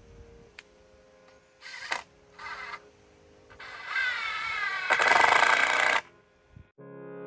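Cordless drill driving screws into wooden boards: two short bursts of the motor, then a longer run of about two and a half seconds that is the loudest, its pitch wavering as the screw bites. Background music comes in near the end.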